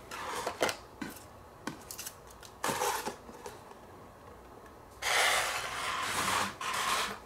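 Clear plastic packaging being handled: crinkling rustles and small plastic clicks as a model airliner is lifted out of its plastic tray, with the longest rustle starting about five seconds in.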